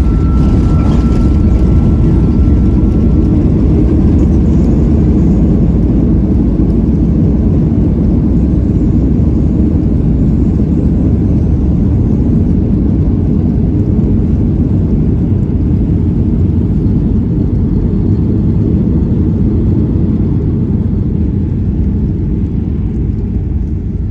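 Loud steady rumble of a Boeing 737-800's CFM56 engines and airflow, heard from inside the cabin during landing. A faint steady whine sits over it for the first few seconds, and the rumble eases off near the end.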